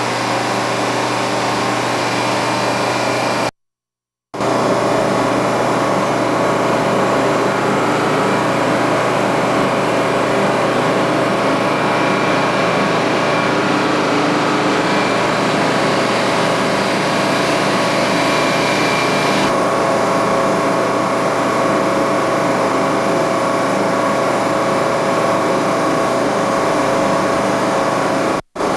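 Engine of a P-811 track renewal machine running steadily, a constant drone with several steady tones. The sound cuts out for under a second about three and a half seconds in.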